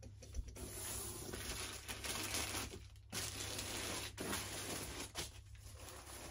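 Cardboard and a fabric carry bag rustling and scraping as they are handled and shifted, in stretches broken by brief pauses, with a few light knocks.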